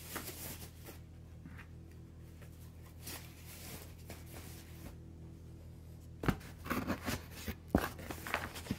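Handling sounds of an item and its packaging being put back into a box: faint rustling, then a run of sharp knocks and clicks from about six seconds in, over a steady low hum.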